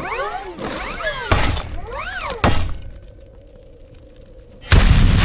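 Cinematic action sound effects: sweeping rising and falling glides with two sharp hits, then a loud heavy crash near the end.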